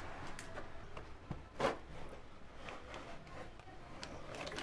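Handling noise of cardboard packaging: rubbing and scraping as the RC car's radio transmitter is worked out of its box insert. A few faint knocks, with a louder one about one and a half seconds in.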